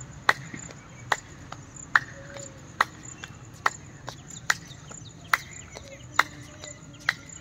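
Steady ticking: sharp, evenly spaced clicks a little more than one a second, each ringing briefly.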